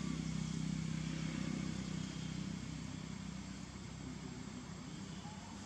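A motor vehicle's engine running with a low, steady hum that fades gradually over the second half.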